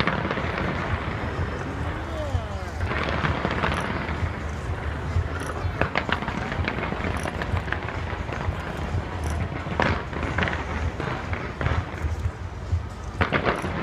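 Aerial fireworks bursting: a run of sharp bangs scattered through, some in quick pairs, over a continuous crackle and a low rumble.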